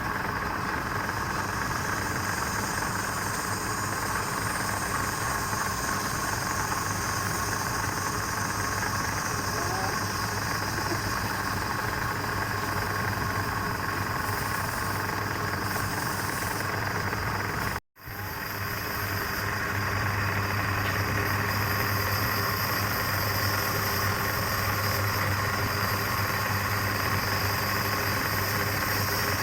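Steady running hum of a wood lathe's electric motor. The sound drops out for an instant about eighteen seconds in, then resumes slightly stronger in its low hum.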